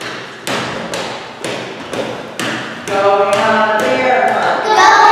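A steady percussive beat of sharp hits, about two a second. About three seconds in, young children's voices start singing together over it.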